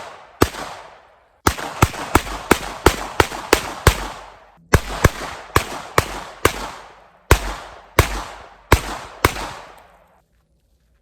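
Diamondback Sidekick .22 revolver firing .22 Long Rifle rounds in quick succession: sharp cracks, each trailing off in an echo, coming in rapid runs and then spaced out, the last one about nine seconds in.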